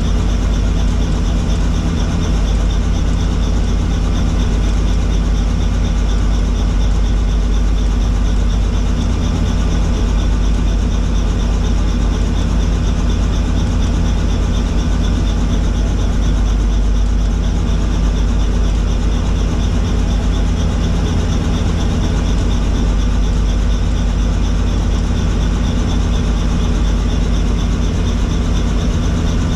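Helicopter engine and rotor running steadily, with a fast, even beat from the rotor blades over a low drone.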